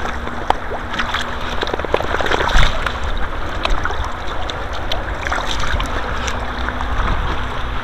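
Shallow river water sloshing and splashing around a mesh keepnet being moved in the water, with many scattered small drips and ticks.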